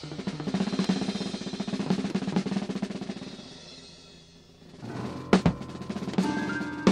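Opening of an early-1970s Italian instrumental record: a rapid drum roll on the kit that fades away about four seconds in, then low notes and a few sharp drum hits come in.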